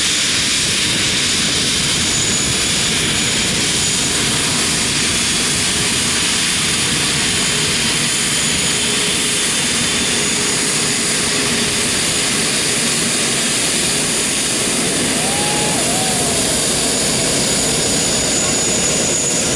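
Jet engines of an Airbus A380-800 airliner running steadily: a loud, even rushing noise with a faint high whine.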